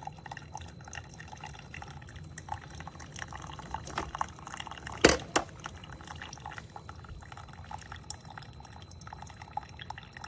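Single-serve coffee maker dispensing hot water, with liquid dripping and trickling into a mug over a low steady hum. Two sharp clicks about five seconds in.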